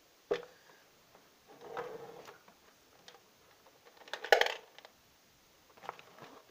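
Handling noise close to the microphone: a sharp click shortly after the start, a rustle about two seconds in, and a louder cluster of sharp clicks and clatter about four seconds in, as small hard objects are handled.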